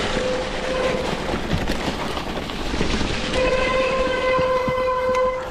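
Electric mountain bike ridden on a trail: rough tyre and wind noise throughout, with a steady whine that comes in about three seconds in and holds.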